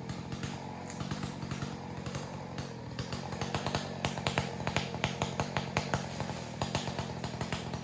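Two-stroke chainsaw idling steadily between cuts, with a run of sharp cracks and clicks from about three seconds in.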